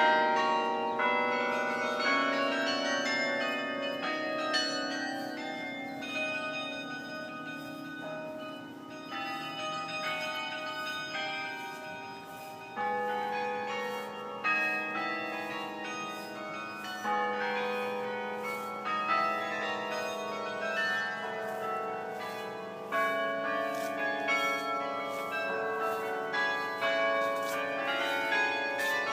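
A carillon playing a tune: bells struck one after another, each note ringing on and overlapping the next.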